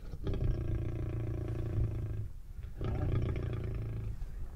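A lion growling in long, deep, steady stretches, broken by brief pauses about two and a half seconds in and again near the end: the defensive warning growl of a lion at bay in cover.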